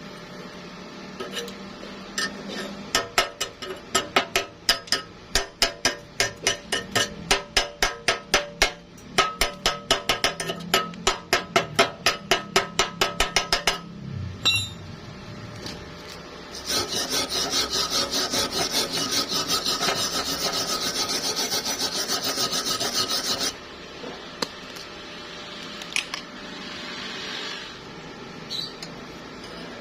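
Quick rhythmic scraping strokes on metal, about three or four a second, for some eleven seconds, like a hand brush or file worked back and forth. About halfway through comes a steady harsh hiss lasting about seven seconds, which stops abruptly, then a few light ticks.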